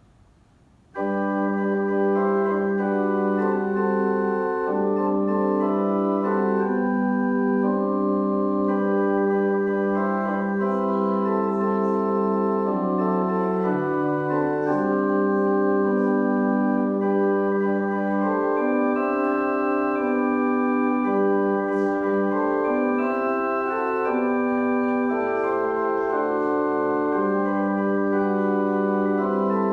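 Church organ playing slow, long-held chords, coming in about a second in after a moment of near silence.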